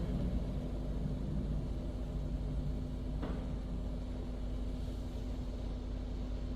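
Automatic car wash machinery running with a steady low rumble and a constant hum, with no water spray; a brief faint swish comes about three seconds in.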